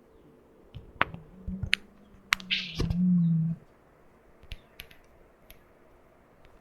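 A series of sharp clicks and knocks, some with a dull thud, with a low steady hum for about two seconds in the middle.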